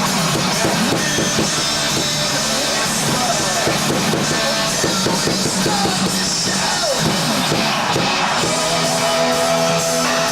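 Loud rock music with a drum kit, played steadily throughout.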